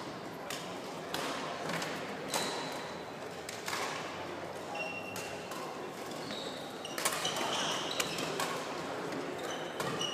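Badminton rackets hitting the shuttlecock with sharp, irregular smacks, and short high squeaks of court shoes on the wooden floor, over background chatter echoing in a large sports hall.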